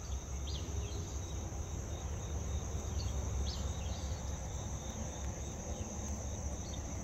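Steady high-pitched chorus of insects, with a few short bird chirps and a low rumble underneath.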